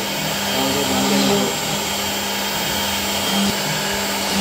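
CNC router spindle running with a steady whine as its bit engraves grooves into a board.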